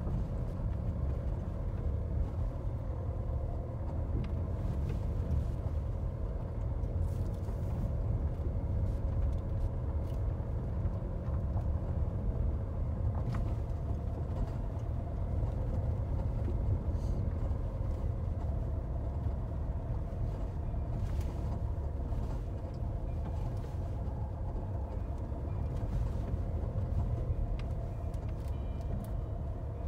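Jeep Renegade driving slowly over a rough dirt track, heard from inside the cabin: a steady low rumble of engine and tyres with a constant hum, and occasional light knocks and rattles over the bumps.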